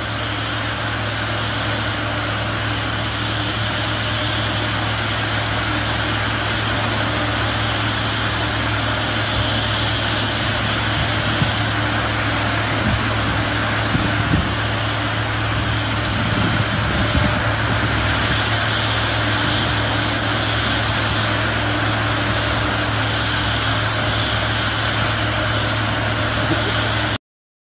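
Heavy construction machinery's engine running steadily at a constant pitch, with a low hum under an even mechanical noise. It cuts off abruptly near the end.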